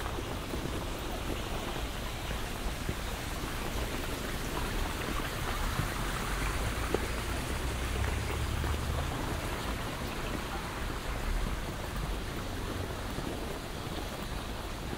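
Steady outdoor hiss of noise, with a low rumble of wind on the microphone that swells about six to nine seconds in.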